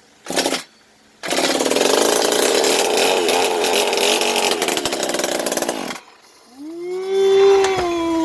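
Stihl TS 400 concrete saw's two-stroke engine being started on full choke. After a short sputter it catches about a second in, runs loudly for about five seconds and cuts out abruptly. Near the end it picks up again with a rising, then slowly falling pitch.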